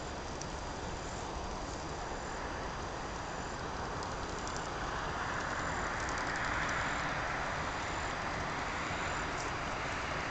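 Outdoor background hiss that swells about halfway through and eases off again, with a faint steady high whine and a few short high chirps over it.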